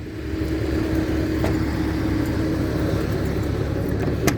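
Motor vehicle engine running steadily, with a steady hum held for the first three seconds and a sharp click near the end.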